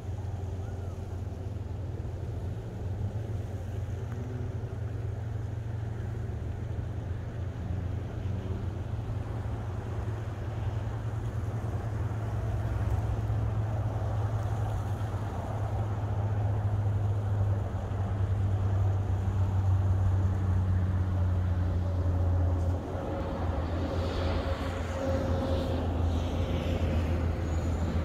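Low, steady vehicle rumble, like road traffic, swelling in loudness through the middle, with faint higher sliding sounds near the end.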